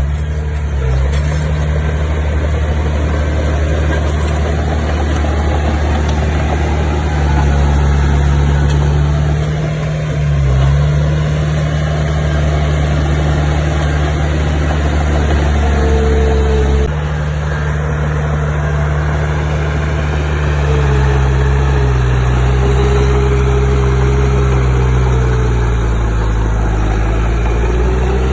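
Diesel engine of heavy earthmoving machinery running steadily, its pitch shifting up and down a little as the load changes. The sound changes suddenly a little past halfway.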